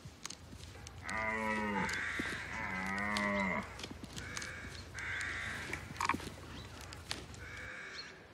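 European bison giving two drawn-out, moo-like calls one after the other, each dropping in pitch at its end, followed by harsh bird caws.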